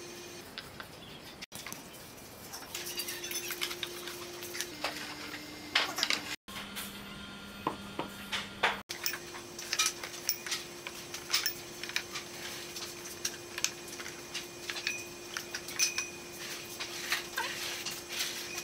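Glass wine glasses clinking and tapping as they are slid by their bases into a wooden wine rack and knocked against the wood, many short sharp clicks, some ringing briefly. A faint steady hum runs underneath.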